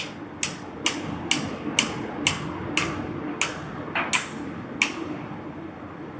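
A metal ratchet clicking at a steady pace, about two clicks a second, over a steady low hum of machinery.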